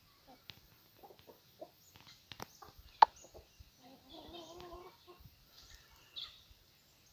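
Domestic hens clucking now and then, with one drawn-out call about four seconds in. A single sharp click about three seconds in is the loudest sound.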